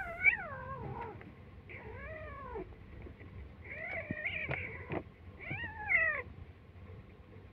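Kitten meowing four times, each call drawn out and arching up then down in pitch, with a few faint taps between.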